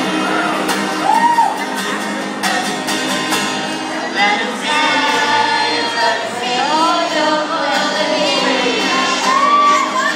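Live band performing a song: several vocalists singing together into microphones over the band's accompaniment.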